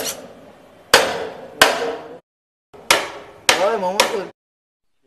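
Hammer blows on a wooden plank fixed to bamboo scaffolding: four sharp strikes in two pairs, each with a short ring. The sound cuts off abruptly between the pairs.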